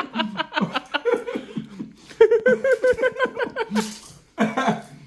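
Men laughing in several bursts of quick chuckles, with a short rustle near the end.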